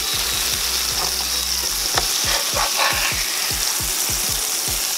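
Butter and oil sizzling and bubbling steadily in a hot cast-iron skillet around a salmon fillet, with a metal spatula sliding under the fish and a sharp click against the pan about two seconds in.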